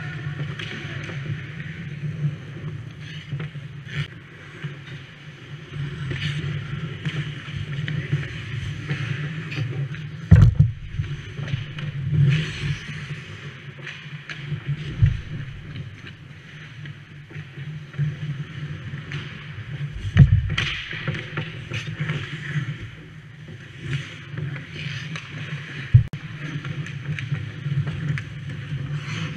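Ice hockey play heard from inside the goal net: skate blades scraping and carving the ice in swelling passes, with several sharp knocks from puck and sticks. A steady low hum runs underneath.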